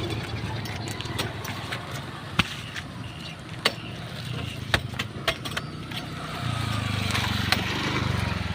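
Single-cylinder Dompeng diesel engine of a three-wheeled Viar cargo vehicle running with a steady fast chug, getting louder about two-thirds of the way in, with a few sharp clanks here and there.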